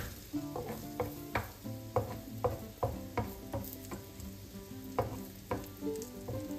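Pancake sizzling as it fries in oil in a nonstick frying pan, with a slotted spatula working at its edge. Calm background music with a string of distinct notes, a few each second, plays along.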